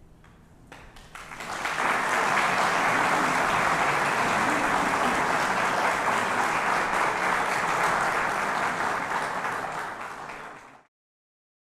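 Concert audience applauding: a few scattered claps about a second in swell into full, steady applause, which then cuts off suddenly near the end.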